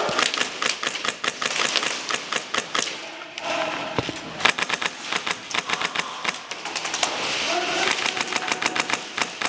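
Airsoft guns firing, rapid trains of sharp clicking shots in three spells with short gaps between, and players shouting faintly.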